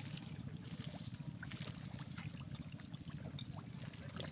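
Water splashing and trickling in shallow muddy water, with small scattered splashes over a steady low rumble.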